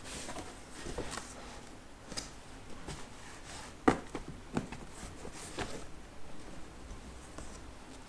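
Scattered light knocks, taps and rustles of objects being handled and set down, with the loudest knock about four seconds in.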